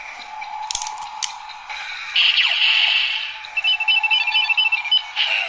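Electronic sound effects from a Kamen Rider Fourze Ride Watch toy: two clicks, then a loud burst of effect sound, then a run of rapid high electronic beeps.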